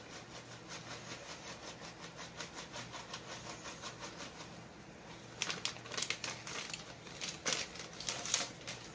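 Plastic bag of shredded cheese shaken over a bowl: a faint, fast, even rustle as the cheese is tapped out, then louder, irregular crinkling of the plastic bag from about five seconds in.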